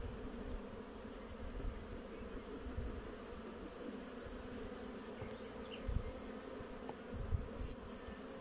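Honey bees buzzing over an opened hive, a steady hum, with a couple of low bumps about six and seven seconds in.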